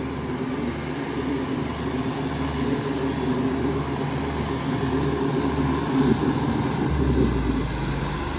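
Tractor diesel engine running steadily under heavy pulling load, with a deep pulsing hum.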